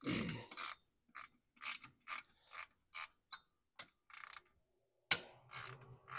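Socket ratchet wrench loosening cylinder head bolts on a snowmobile engine. The pawl clicks in short bursts on each back-swing of the handle, about two strokes a second, with a brief pause about four and a half seconds in.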